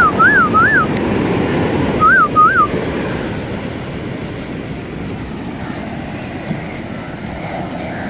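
Rough sea surf washing on the beach, with wind buffeting the microphone. Five short rising-and-falling whistled notes sound over it: three at the start and two more about two seconds in.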